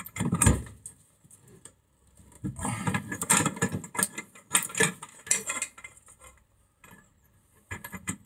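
Metal-on-metal clinking and clicking as a socket on a long bar is worked on the centre nut of an old brake disc hub held in a vise. A short burst comes at the start, a longer run of clicks and clatter about two to five seconds in, and another brief clatter near the end.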